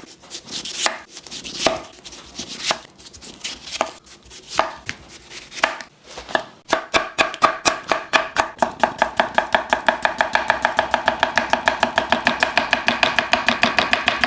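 Freshly sharpened Victorinox kitchen knife chopping on a cutting board: irregular single cuts at first, then, from about seven seconds in, fast even chopping strokes.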